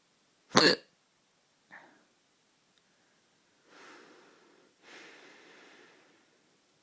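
A person hiccuping: one sharp, loud hiccup about half a second in and a fainter one about a second later, followed by two longer, softer breathy sounds.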